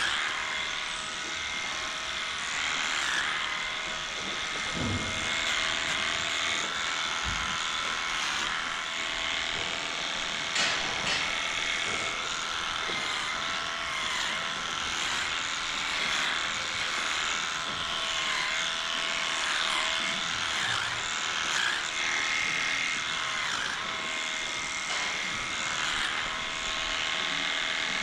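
Cordless electric animal clippers running with a steady whine that dips in pitch now and then as the blades cut through the hair of a cow's tail switch. A few knocks sound over it.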